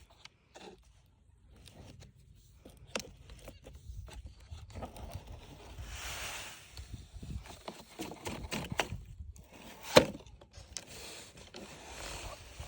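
Toys scraping and rustling in sand, with scattered small clicks and knocks and one sharper knock about ten seconds in.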